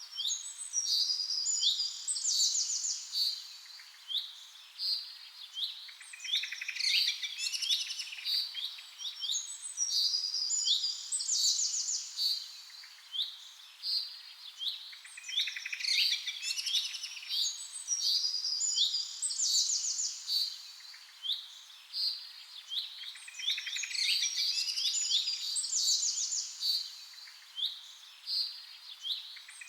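Many small birds chirping and twittering, with quick high calls and trills that come in busy clusters every few seconds.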